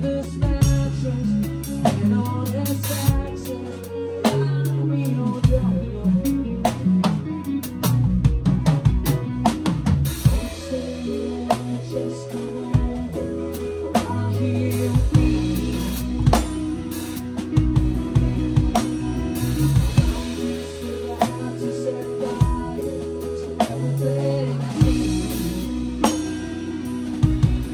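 Drum kit played with a full band in a slow rock song: bass drum and snare strokes with cymbals over held bass notes and guitar.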